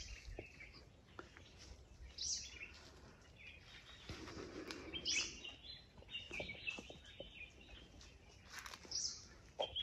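Wild birds calling faintly: short high chirps every couple of seconds, with a run of quick chattering notes from about four to seven and a half seconds in.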